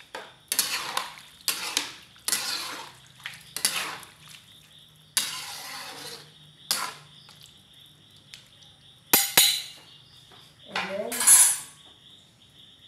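Metal ladle and spoon scraping and clinking against a large metal wok while stirring a brothy vegetable and noodle mixture, in a series of separate strokes with a couple of sharp clinks about nine seconds in.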